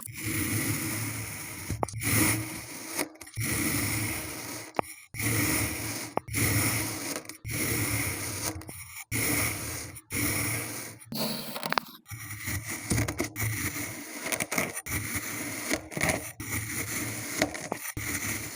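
Kinetic sand being squished and crumbled, heard as a string of grainy rustles, each a second or two long, with brief pauses between.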